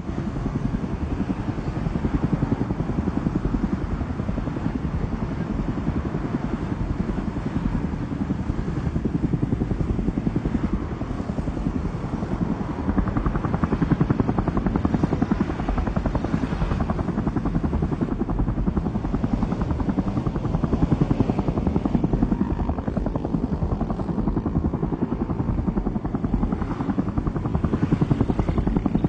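Helicopter rotor and engine noise heard from aboard the helicopter: a steady, rapid blade chop.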